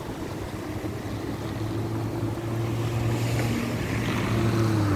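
A motor vehicle's engine hum growing steadily louder as it approaches, over wind noise on the microphone.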